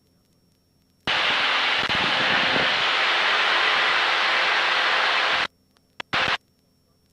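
A hiss of noise over the aircraft's radio/intercom audio, as when a transmitter or microphone is keyed with no voice. It switches on abruptly about a second in and cuts off after about four seconds, followed by two short blips of the same noise.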